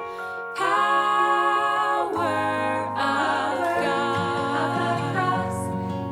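Recorded Christian worship song playing: slow, sustained sung and held notes changing chord about every second.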